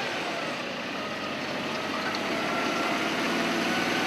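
Kenworth road train's diesel engine running as the loaded truck gets under way, its pitch rising slowly and the sound growing a little louder.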